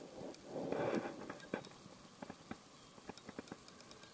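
Faint handling noise from a wading fly angler holding a rod: a brief soft rustle about a second in, then scattered small clicks and ticks.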